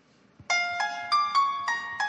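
Background music that starts about half a second in: a melody of single notes, each starting sharply and ringing on, about three a second.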